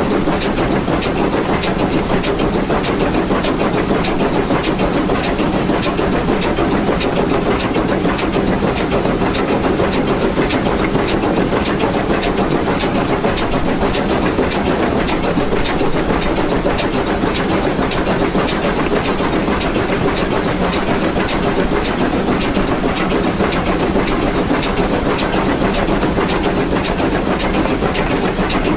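Baldwin 2-8-2 steam locomotive working at full power up a climbing grade, heard close to its driving wheels: a steady, dense running noise with a fast, even run of sharp clicks.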